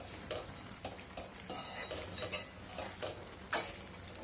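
Metal spoon stirring a wet mixture of grated carrots cooking in milk in a metal pan, scraping the pan with irregular clinks against its sides.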